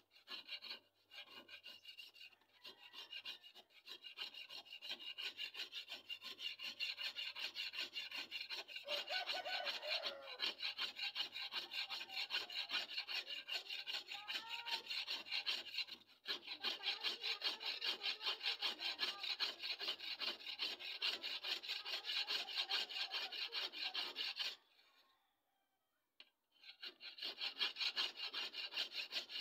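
Steel blade of a small bolo being sharpened by hand: rapid, rhythmic back-and-forth scraping strokes along the edge, several a second, stopping briefly near the end.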